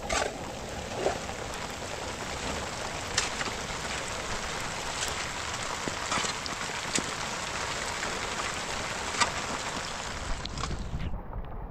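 Steady heavy rain, with scattered sharper drops or taps standing out now and then; the rain sound cuts off abruptly near the end.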